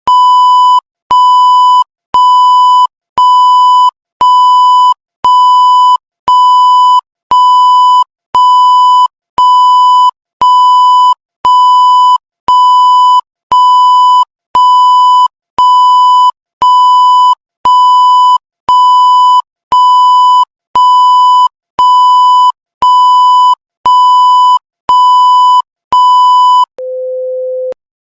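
A loud, high electronic beep repeated about thirty times, about once a second, each beep about half a second long and starting with a click. Near the end a single lower, quieter tone lasts about a second.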